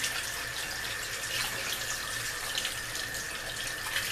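Kitchen tap running steadily into a saucepan of water in a stainless steel sink, the stream splashing over hands peeling hard-boiled eggs.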